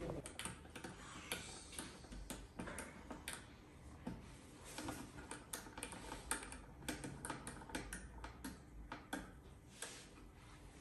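Irregular light clicks and ticks of an Allen key working the screws of a motorcycle's windscreen mount, with the plastic screen and bracket knocking now and then.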